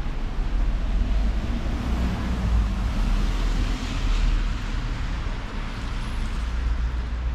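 Wind rumbling and buffeting on the microphone over an even wash of outdoor traffic noise.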